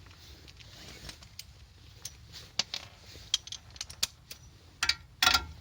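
Scattered light metallic clicks and knocks from the car's front suspension parts and tools being handled, with a louder clank and a short ring near the end.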